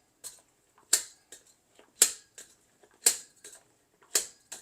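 Jaccard hand-held blade meat tenderizer punching into a thick tomahawk steak, its spring-loaded blades clicking sharply about once a second as they go through hard fat.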